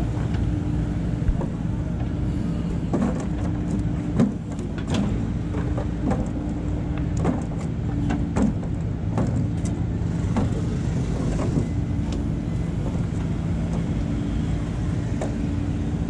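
JCB 3DX backhoe loader's diesel engine running steadily as the backhoe digs and swings, with scattered clunks and knocks from the bucket and earth through the middle stretch.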